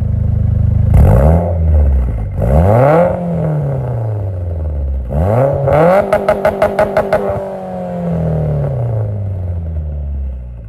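A car engine idling, blipped up twice, then revved high with a quick stutter of about seven sharp cut-outs in a second before the revs fall slowly back down.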